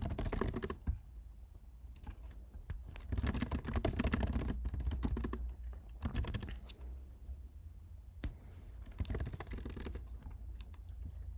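Computer keyboard typing in quick bursts of keystrokes with short pauses between them.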